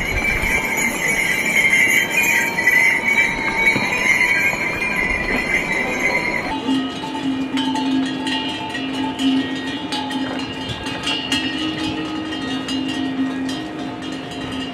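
Bells on a passing caravan of pack horses and mules ringing steadily, over the clatter of hooves on a dirt trail; the sound changes abruptly about six and a half seconds in.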